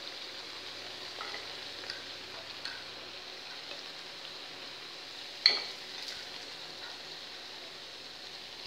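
Maqrout pastries deep-frying in hot oil in a pan, with a steady sizzle. The fork turning them taps the pan lightly a few times and clinks sharply once, about five seconds in.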